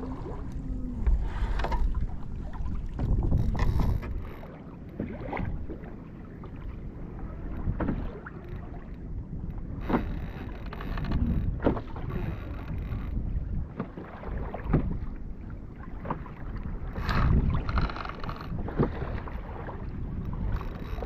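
Water slapping against a fishing kayak's hull on choppy sea, with wind buffeting the microphone as a low rumble, rising and falling in surges. A few sharp knocks and splashes are scattered through it.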